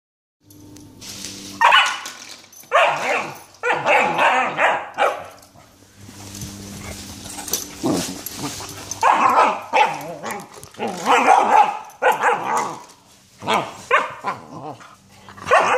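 Spring door stop being flicked over and over by a puppy, each flick a sharp snap followed by a wobbling twang that dies away within about a second, sometimes several in quick succession.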